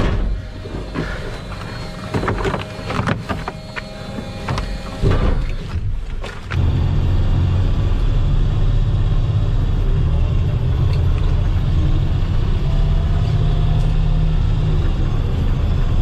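Knocks and clatter in a vehicle cab, then from about six seconds in the steady low rumble of the vehicle's engine and running gear heard from inside the cab as it drives.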